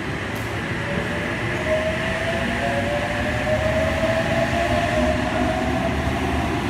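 Sydney Trains OSCAR (H set) electric multiple unit departing and picking up speed past the platform, its traction motors giving a whine that rises slowly in pitch over the steady rumble of the cars on the track.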